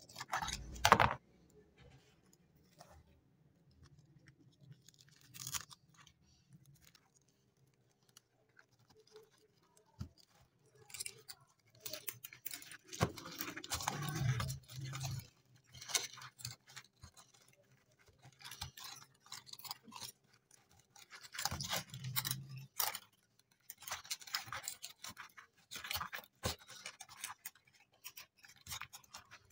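Scattered scraping, crunching and light clicks of dry, caked-on dirt being crumbled and picked off a rusty antique file knife as it is handled. It is almost quiet for several seconds near the start, then the handling noises come in irregular clusters.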